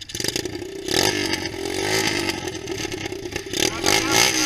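Motocross bike engines idling, with throttle blips that make the pitch rise and fall a few times.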